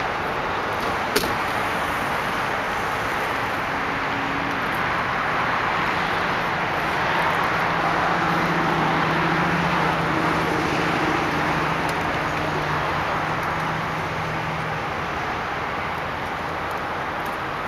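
Steady road traffic noise, with a vehicle's engine hum that swells in the middle and fades again. A car door shuts with a sharp click about a second in.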